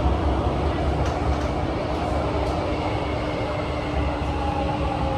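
Inside a CT251 metro train car running at speed: a steady rumble of wheels and running gear under a constant hum, with a few faint ticks. About four seconds in, a higher tone joins as the train runs in alongside a station platform.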